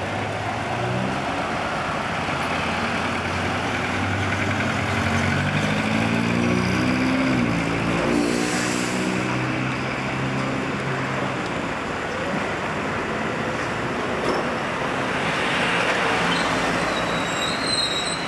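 Street traffic, with a motor vehicle's engine rising steadily in pitch as it accelerates through the first half. Near the end a W class tram draws close, with faint high squealing from its wheels.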